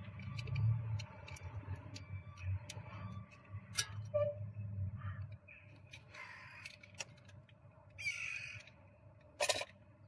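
Clicks, rustles and scrapes of a plastic oil-additive tube and its packaging being handled and cut open with a knife. A short harsh rasping sound comes about eight seconds in, and a sharp snap comes near the end.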